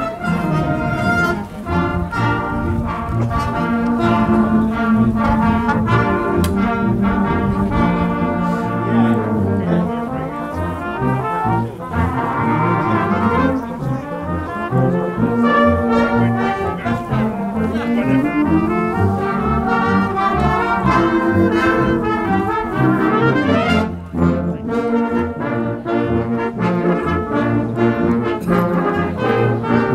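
A brass band playing, with trombones and higher brass together in held chords and a moving melody.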